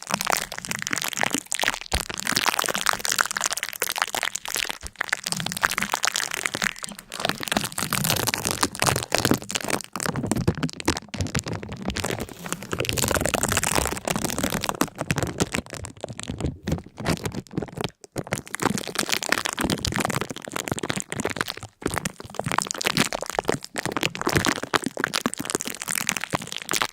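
Dense, irregular cracking and crunching that goes on without a break, with two brief gaps late on.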